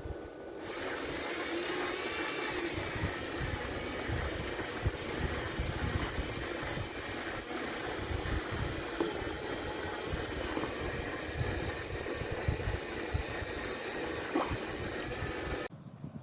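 Electric drill running steadily while drilling holes in a sailboat mast, starting abruptly about half a second in and cutting off suddenly near the end.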